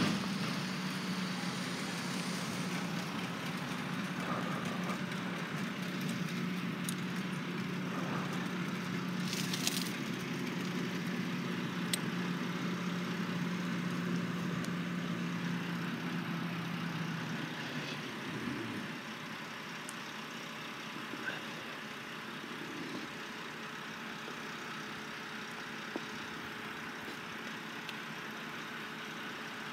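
Garbage truck engine running at a steady pitch, then dropping away about 18 seconds in, leaving a lower background hum. A short hiss about ten seconds in.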